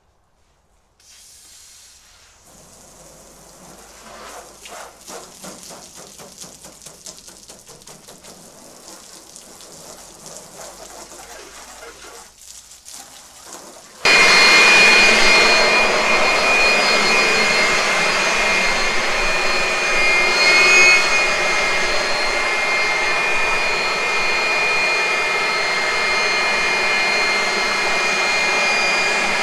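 Compressed-air blow gun blowing water off a freshly washed car body so that it will not drip during painting. A fainter hiss builds through the first half, then about halfway a loud steady rush of air starts, with a high whistle from the nozzle.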